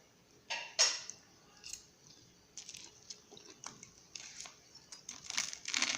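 Someone biting into and chewing the freshly made microwave cheese bread: two sharp bites near the start, then irregular soft crackly chewing that gets busier toward the end.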